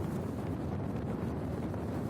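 Steady wind rumble on a phone microphone during a snowboard run downhill through powder snow.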